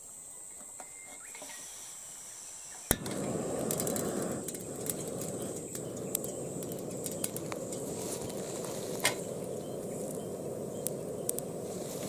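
A steady high insect buzz outdoors. About three seconds in, a sharp click comes, and then a steady rushing noise with scattered crackles and clicks starts and runs on.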